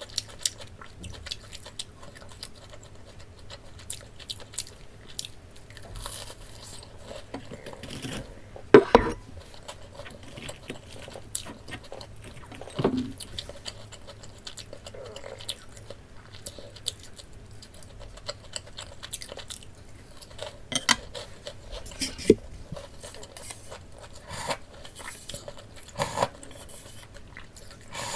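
Close-miked eating sounds: a person biting and chewing breaded pork cutlet, with crunches and occasional clinks of cutlery on a dish. Sharp clicks and crunches come scattered through, the loudest about nine seconds in.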